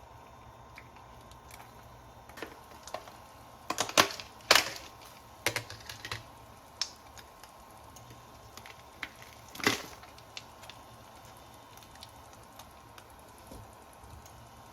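Irregular light clicks and knocks of small objects being handled, most of them bunched together about four to six seconds in, with one more sharp knock near ten seconds, over a faint steady hum.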